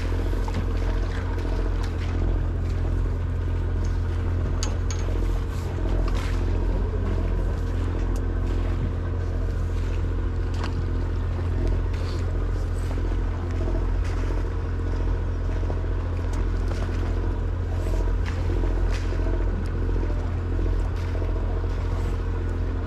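Party fishing boat's engine running with a steady low drone. A few light clicks and taps are scattered through it.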